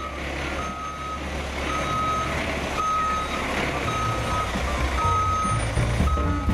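Reversing alarm on a septic vacuum tanker truck, a single high tone beeping about once a second, over the low running of the truck's diesel engine.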